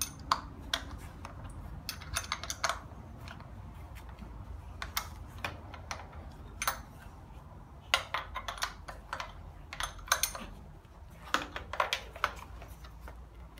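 Irregular light metallic clicks and clinks of hand tools and metal parts, in small clusters, while the intake side of a Hyundai Accent engine is being unbolted.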